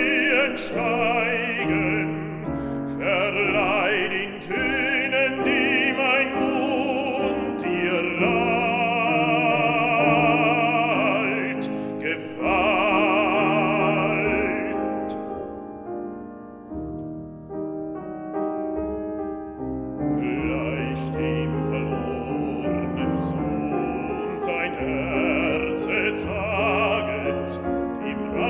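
Male baritone singing a German art song with vibrato, accompanied by a Bösendorfer grand piano. About halfway through, the voice rests for several seconds and the piano plays on alone, more quietly, before the singing resumes.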